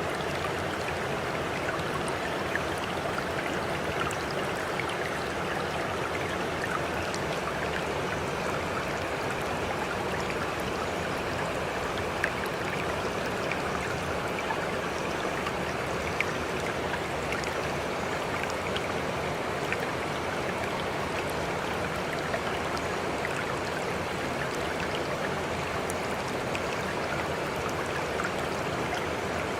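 Water running steadily, like a flowing stream, with small splashes and drips through it.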